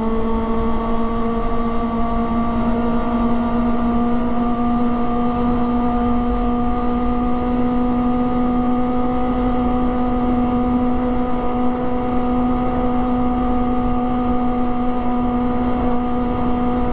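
Kawasaki ZX-25R's 250 cc inline-four engine running at steady high revs while cruising at about 60 km/h, holding one even note.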